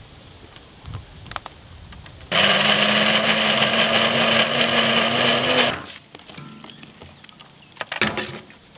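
Electric mixer grinder running for about three and a half seconds, grinding a peanut and chilli masala paste in its stainless steel jar, its pitch rising slightly before it winds down. A few sharp clinks near the end as the steel jar is lifted off the base.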